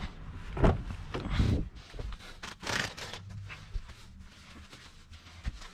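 A car door is opened, with two heavy thumps in the first second and a half, followed by a short rustle and scattered light clicks as things are handled on the seat.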